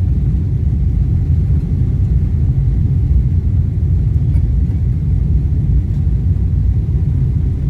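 Steady loud rumble inside an airliner's cabin as it rolls along the runway for takeoff: the jet engines and the wheels on the runway, with the whole cabin shaking.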